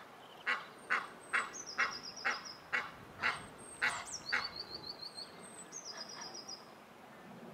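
Egyptian goose giving a run of harsh honks, about two a second, which tail off after about four seconds into a few fainter calls.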